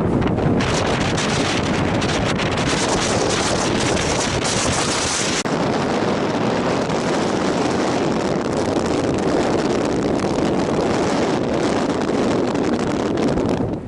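Strong wind blowing hard across the microphone: a loud, unbroken rush and rumble that swells and eases in gusts.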